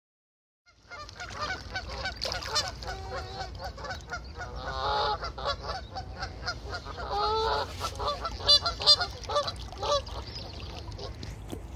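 A flock of geese honking, many short overlapping calls one after another, over a low steady rumble.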